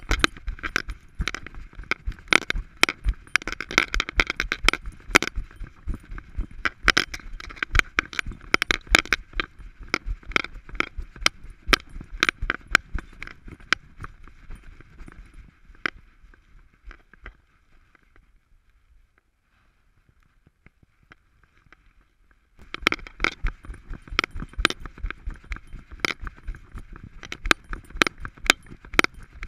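Rapid, irregular clicking and rattling of a harness-mounted action camera and its strap as an Alaskan Malamute walks. The sound drops away for a few seconds past the middle and then resumes.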